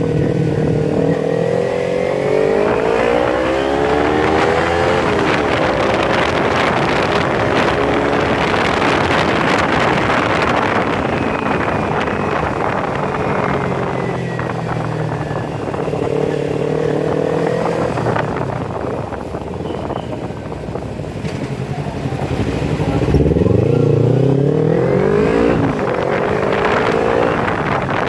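Kawasaki Ninja 250 FI parallel-twin engine through a Scorpion full-system exhaust with no dB killer, its revs climbing and dropping again and again, running at high revs for a stretch in the middle.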